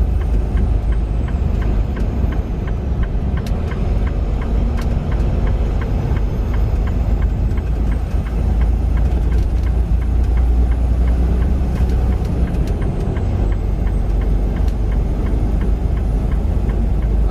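Semi-truck's engine and road noise heard from inside the cab while driving at highway speed: a steady, heavy low rumble.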